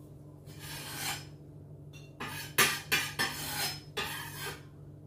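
Kitchen knife scraping and tapping on a wooden chopping board while chopped walnuts are gathered up: one scrape about half a second in, then a quick run of scrapes and sharp knocks a little past the middle.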